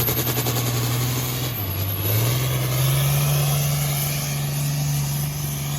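Diesel truck engine running with a high-pitched turbo whine that rises at the start; the engine note steps up in pitch about two seconds in.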